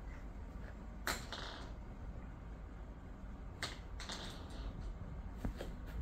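A few light taps and clicks as a baby crawls and handles a board book and small toys on a foam play mat, over a low, steady room hum. The sharpest tap comes about a second in, a couple more around the middle, and fainter ones near the end.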